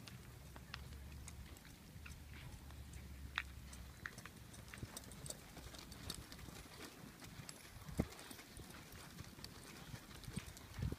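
Horse hooves stepping on soft arena dirt, faint, with scattered light clicks and a few sharper knocks. A low hum underneath drops away about four seconds in.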